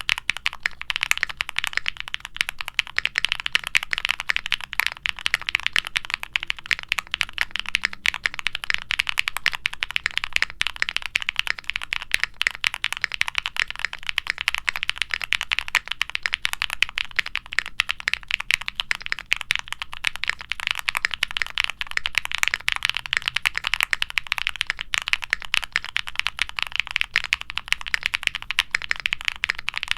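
Continuous fast typing on a Qwertykeys Neo65 mechanical keyboard, a dense unbroken stream of keystrokes. The keyboard has lubed Gateron Baby Kangaroo switches with nylon top housings on a POM plate, foam dampening and PBT keycaps, and gives a marbly bottom-out sound.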